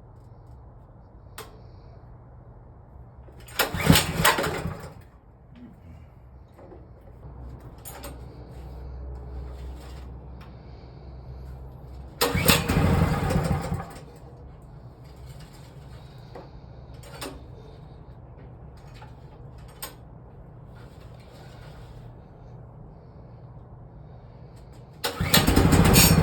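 Hart 3600-watt gas generator's engine being pull-started with its recoil cord three times, about 4, 12 and 25 seconds in, each pull turning it over for a second or two without it staying running. The owner puts the hard starting down to the choke being set to run instead of start.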